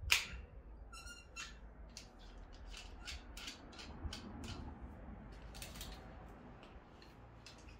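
Small handling clicks from a Wagner Control Pro 250R airless spray gun as a replacement nozzle tip is fitted into its tip guard: a sharp click at the start, a brief squeak about a second in, then a run of small ticks and clicks that thin out near the end.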